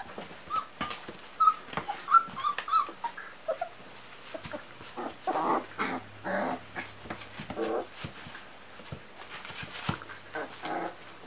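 Young puppies whimpering and squeaking in short high-pitched calls, most of them in the first few seconds, followed by a run of rougher, noisier sounds from play with their mother, with scattered small clicks of movement.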